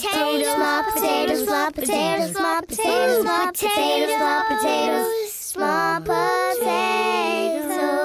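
Several high voices of the cartoon potato characters singing a cheerful children's song together in harmony.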